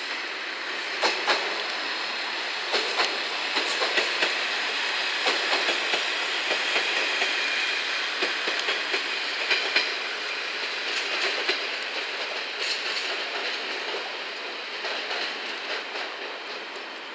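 Two-car KiHa 47 diesel railcar set running past over rail joints and points, its wheels clacking in a steady run of sharp clicks over the noise of the moving train. The sound fades near the end as the train draws away.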